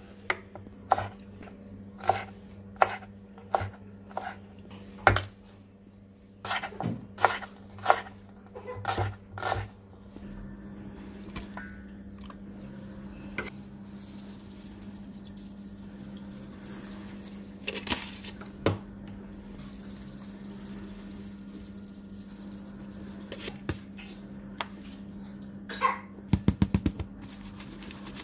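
A kitchen knife chopping garlic on a wooden cutting board: sharp chops about once a second for the first ten seconds. After that a steady low hum, with a few scattered clicks and a quick run of taps near the end.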